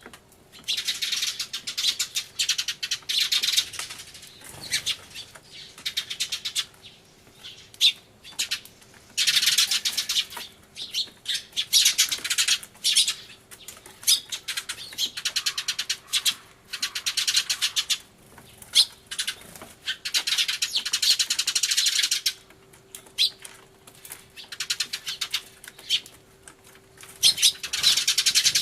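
A flock of Eurasian tree sparrows chirping loudly and rapidly, in bouts of a second or few with short lulls between.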